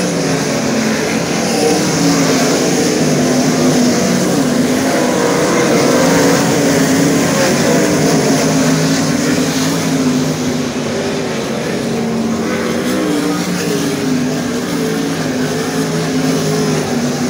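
A field of winged 410 sprint cars running on a dirt oval: several methanol-fuelled V8 engines at once, their pitches wavering up and down and overlapping as the cars pass through the turns and down the straights.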